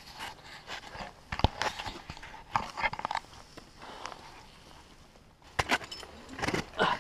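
Irregular rustling, scraping and clicking of a climber's clothing and gear close to the camera, with a quieter stretch before a burst of louder rustles near the end.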